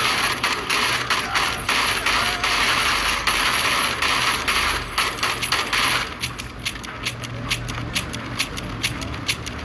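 Film sound effects for an assault-rifle scene: a dense hiss with rapid, irregular sharp metallic clicks for about six seconds. The hiss then drops away, leaving scattered sharp metallic clinks, like small brass pieces landing on a hard floor.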